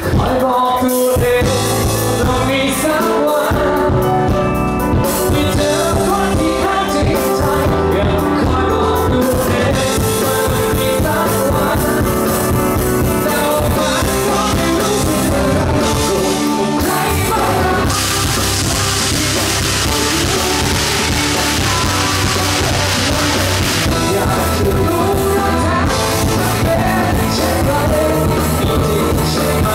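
A live pop-rock band playing a song, with guitar, drum kit and a lead singer, heard through a concert PA.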